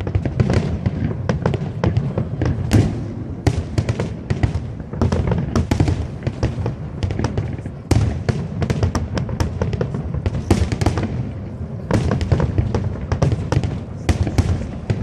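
Fireworks display going off without pause: many sharp bangs and crackles in quick succession over a continuous low rumble of shell bursts.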